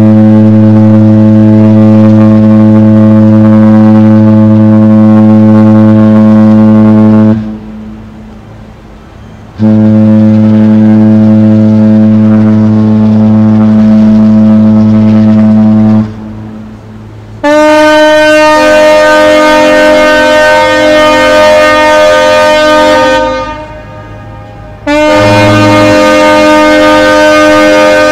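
Ship's horns sounding farewell blasts as a cruise ship leaves port. First come two long, deep blasts of several seconds each, then two long, higher-pitched blasts with more than one tone sounding together.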